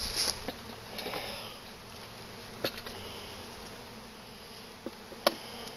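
Honey bees from freshly installed packages buzzing around the hive entrance in a steady, soft hum. A few light knocks come through, the sharpest about five seconds in.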